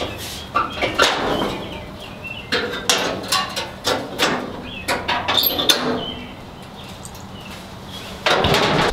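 Steel hood and hood hinges of a Ford Bronco clanking and knocking as they are handled by hand. Near the end the hood comes down with a short, loud rush of noise that stops abruptly.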